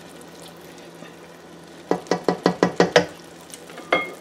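A spoon stirring and scraping jollof rice in a stainless steel pot: a quick run of about eight scrapes and knocks in the middle, then a single ringing tap on the pot near the end.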